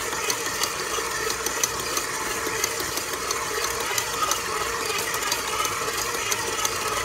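Stand mixer motor running steadily, its dough hook kneading a stiff bread dough in a stainless steel bowl, with light ticks about once a second. The dough has come together and is pulling away from the sides of the bowl.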